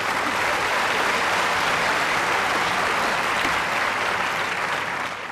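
Large theatre audience applauding, a dense steady clapping that fades away near the end.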